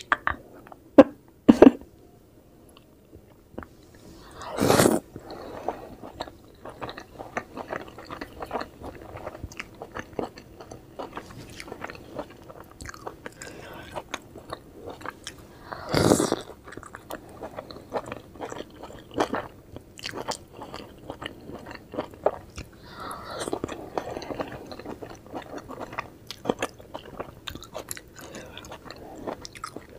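Close-miked chewing and biting of steamed vegetable momos dipped in chutney: a dense run of soft, wet mouth clicks. There are a few sharp clicks in the first two seconds and two louder bursts, about five seconds in and about sixteen seconds in.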